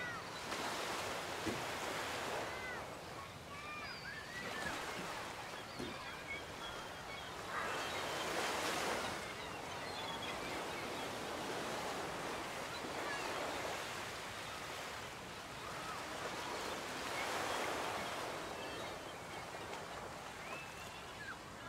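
Ocean surf washing onto a beach, the rush of the waves swelling and easing every several seconds.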